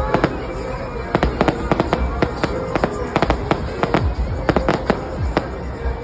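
Fireworks display: a rapid string of sharp bangs and crackles, several a second, varying in loudness.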